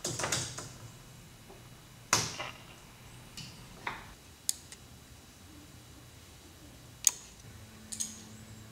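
Handling noises: a handful of scattered sharp clicks and knocks over a faint low steady hum, with no piano notes played.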